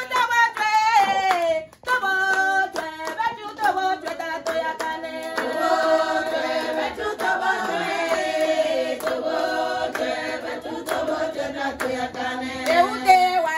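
Several voices singing together, with hands clapping along; the singing breaks off briefly about two seconds in.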